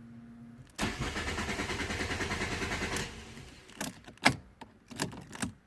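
Fiat Panda 1.2 petrol engine cranking on the starter motor for about two seconds with a steady pulsing, then the starter stops without the engine catching: a crank-no-start with the immobiliser active. Before the crank there is a faint steady hum, which the mechanic takes for the fuel pump running. A few sharp clicks and knocks follow near the end.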